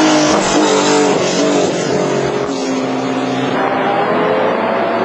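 Racing car engines at high revs passing at speed. Their notes climb and fall, with more than one engine heard at once.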